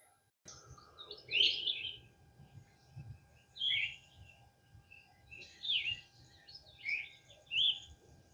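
Songbirds chirping in about five short phrases a second or so apart, over a faint steady hum.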